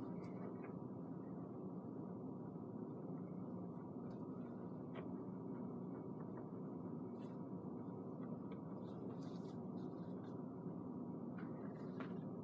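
Steady low room hum with faint scratches of crayons drawing on paper now and then.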